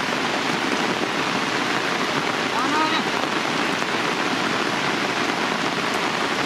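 Heavy rain falling steadily onto wet ground and umbrellas, an even dense hiss.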